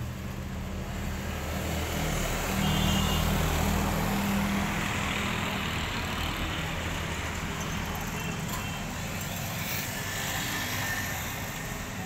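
Street traffic: a motor vehicle's engine running, growing louder about two to five seconds in and then easing off, over a steady background rumble of traffic.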